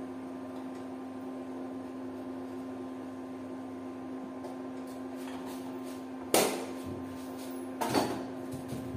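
Two sharp knocks about a second and a half apart, from plastic kitchen jars being handled and set down on the counter, over a steady electrical hum with a constant low tone.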